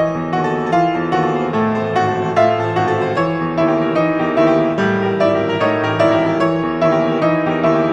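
Solo piano music: a steady flowing stream of struck notes over held bass notes.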